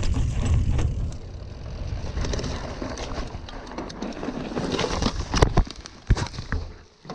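Mountain bike rolling down a steep dry dirt trail, with tyre and wind rumble on the camera microphone. About five seconds in, several sharp knocks and thumps come as the rider crashes and the bike goes down, then the sound falls away.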